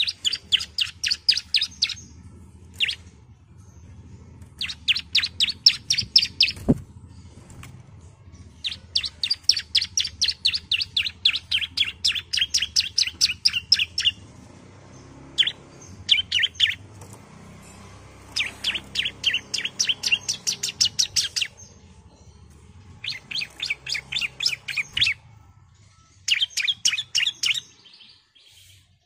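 Bar-winged prinia (ciblek) singing: bursts of rapid, evenly repeated high chattering notes, about ten a second, each burst lasting one to five seconds with short pauses between. A single sharp knock about seven seconds in.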